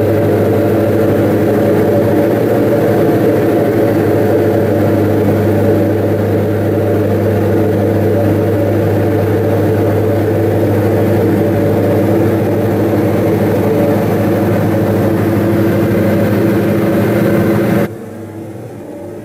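Twin Austro AE300 turbo-diesel engines of a Diamond DA42-VI in cruise, heard from inside the cabin as a loud, steady drone with a low hum. Near the end the sound suddenly drops to a much quieter, duller level.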